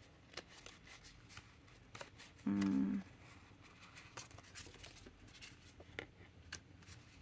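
Stiff cardstock ink swatch cards being handled and leafed through: faint light clicks and paper rustles. A short closed-mouth hum, about half a second long, comes about two and a half seconds in.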